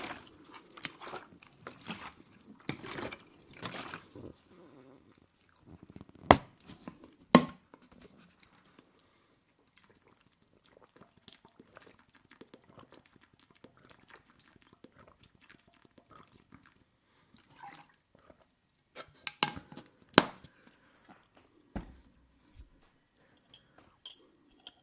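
Close-miked wet chewing of oil-soaked aubergine, fainter through the middle stretch, with four sharp clinks: two about six to seven seconds in and two near twenty seconds.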